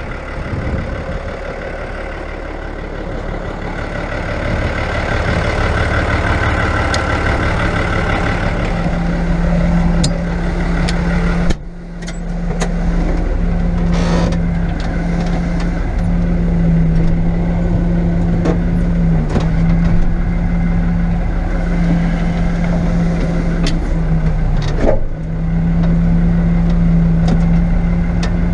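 Fiatagri 100-90 tractor's diesel engine running steadily, heard from the cab, with light rattles. The engine note drops briefly and suddenly twice, once about two fifths of the way in and again near the end.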